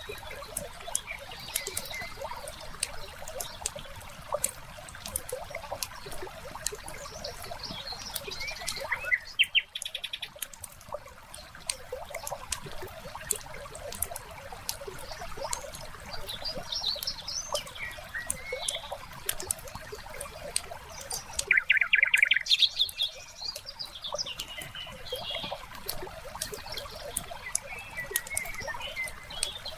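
Layered nature ambience: a wood fire crackling with scattered sharp pops, small birds chirping, and water trickling. Two louder, rapid bird calls stand out, about a third of the way in and again about three quarters in.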